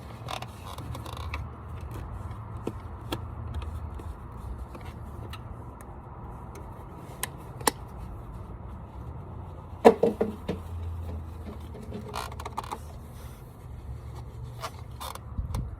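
Handling noises of oil bottle and engine parts while oil is added: scattered clicks and light knocks, with a cluster of louder knocks about ten seconds in, over a steady low hum.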